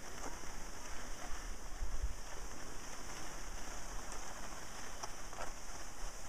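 Skis sliding and scraping over packed snow, a steady hiss with a few faint ticks, with wind buffeting the microphone as a gusty low rumble.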